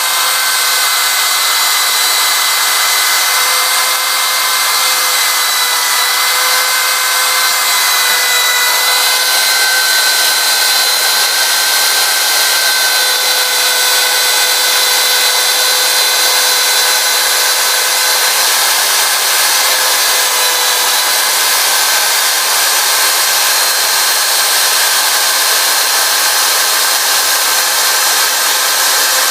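1200 W spindle of a homemade CNC router running at high speed: a steady high whine over a loud hiss, its pitch wavering slightly a few times.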